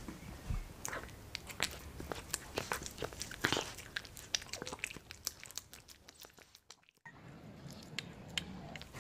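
A cat eating soup with sausage from a small ceramic bowl: quick small wet chewing and lapping clicks, dense at first and thinning out after about four seconds. The sound cuts out briefly near seven seconds, then the clicks resume.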